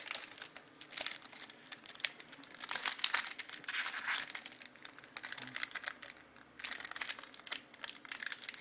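Wrapper of a 1997-98 Topps Finest trading card pack being crinkled and torn open by hand: an irregular run of crackles and rustles, with a short lull about six seconds in.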